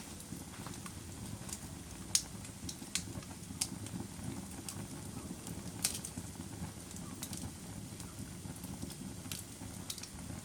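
Wood fire crackling in a fireplace: irregular sharp pops and snaps over a low, steady rumble of burning.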